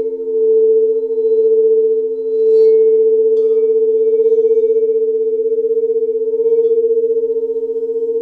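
Alchemy crystal singing bowls tuned to 432 and 528 Hz ringing in steady, overlapping tones with a slow pulsing waver in loudness; a fainter, higher ring joins about two and a half seconds in.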